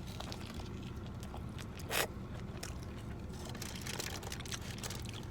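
A man biting into and chewing a large grilled cheese burrito: small clicky mouth sounds, with a short crunch about two seconds in, over a steady low hum.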